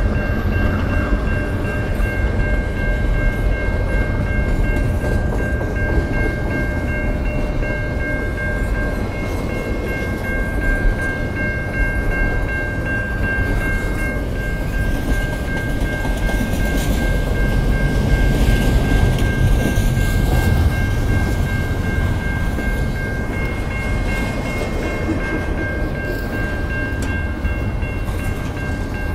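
Double-stack intermodal freight train rolling steadily through a grade crossing, its cars and wheels making a loud, continuous rumble. The crossing's Safetran Type 3 low-pitch bell rings steadily over it.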